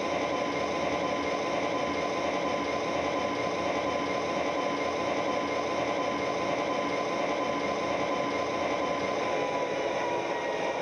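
O-scale MTH model diesel locomotive running on track: its Proto-Sound 3.0 speaker plays a steady diesel engine sound, mixed with the whir of the electric motor and wheels, with a thin high whine that drops slightly near the end.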